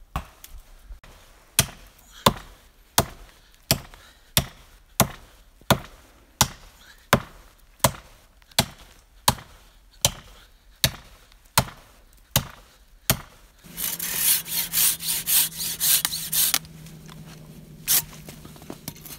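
Axe chopping into the trunk of a thin green poplar, with sharp, evenly spaced blows about every 0.7 seconds. About 13 seconds in the chopping stops and a dense stretch of crackling and rustling follows as the felled poplar comes down through branches and snow.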